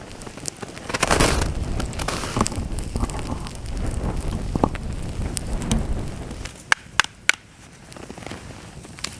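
Campfire crackling, with a low rumbling noise for most of the first six seconds and three sharp snaps close together a little past the middle.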